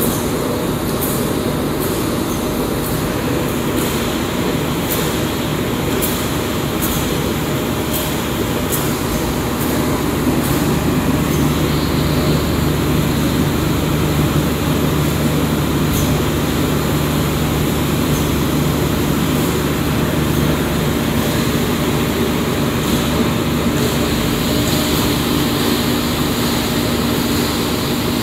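Vaner V-S35 copper wire granulator line running, with its vibrating screen shaking copper granules: a loud, steady machine din. Sharp ticks sound in the first several seconds, and a low hum grows in about ten seconds in.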